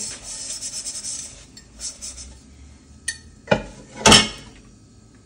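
Washing up at a kitchen sink: a sponge scrubbing a cooking pot in quick strokes, then a few sharp clanks of pots knocking together, the loudest about four seconds in.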